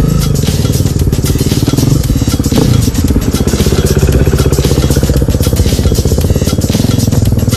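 Dirt bike engines running close by, with even firing pulses; an orange KTM enduro bike rides past about halfway through.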